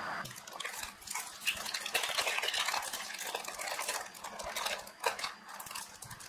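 Paper-and-plastic pouch of a glue syringe crinkling and rustling as it is handled and opened, with many small crackles and one sharper click about five seconds in.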